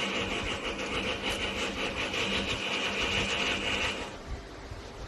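Plastic housing parts rubbing, scraping and clicking against each other as the other half of a small appliance's shell is fitted on, over a steady high hiss that stops about four seconds in.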